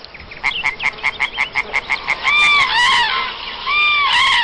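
Animal calls: a rapid run of short calls, about six a second, then four longer calls in two pairs that rise and fall in pitch.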